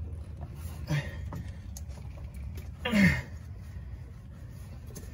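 Faint clicks and rubbing from handling a fuel line and quick-connect fitting under a vehicle, over a steady low hum. About three seconds in comes a short grunt that falls in pitch.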